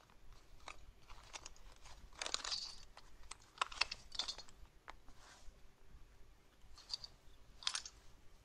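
Clothing rustling, with small irregular clicks, as hands work at the fastenings of a heavy embroidered robe. The rustles come in short swishes, strongest a couple of seconds in, around four seconds in, and once more near the end.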